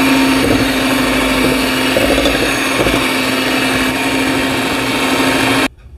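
Electric hand mixer beating thick ground urad dal batter, a steady motor whine that cuts off suddenly near the end.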